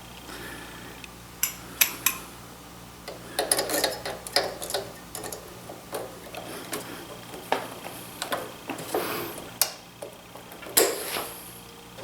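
Metal hand tools and small metal parts clinking and clattering in irregular, sharp knocks, as of work on a planer's drive mechanism during reassembly.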